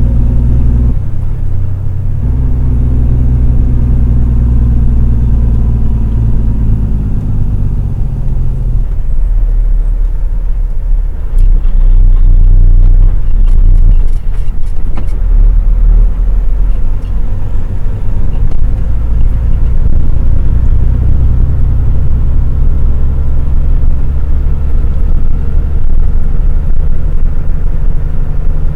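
Logging truck's diesel engine and drivetrain running under a heavy low rumble. The engine pitch falls over the first several seconds, and the rumble grows loudest about halfway through, with a few light rattles.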